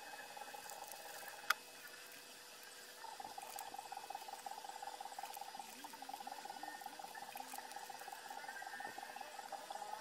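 A pair of scissors closes through paper with one sharp snip. From about three seconds in, a steady, fast-pulsing trill runs in the background while the paper is handled.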